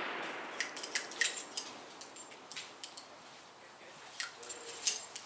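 .44 Special Bisley revolver shot's echo fading away, followed by scattered light metallic clicks, about a dozen over the next few seconds, as of the revolver being handled after firing.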